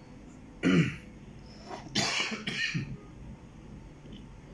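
A man coughing: one short cough less than a second in, then a double cough around two seconds in.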